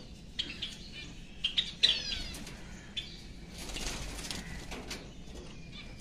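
Caged grey Java sparrows giving short chirps and clicks, with a quick run of chirps about two seconds in and a flutter of wings around four seconds in.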